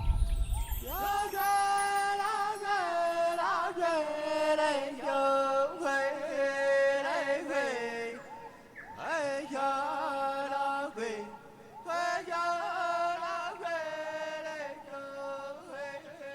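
Music: a chant-like melody of long held notes that slide between pitches, opening with a low thump.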